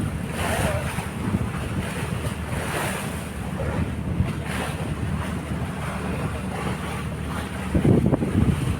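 Wind buffeting the microphone over the wash of open-sea waves, with a stronger gust near the end.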